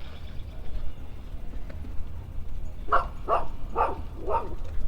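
A dog barking four times in quick succession, starting about three seconds in, over a steady low background rumble.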